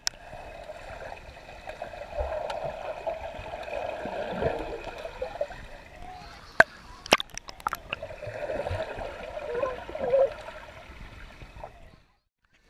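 Swimming-pool water churning and bubbling, heard muffled from underwater as a child splashes and kicks. A few sharp knocks come near the middle, and the sound cuts off abruptly near the end.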